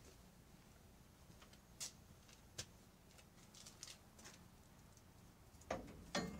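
Sparse faint clicks and light metallic knocks from handling tools and parts at a pickup truck's front suspension, with two louder knocks near the end, over a low steady hum.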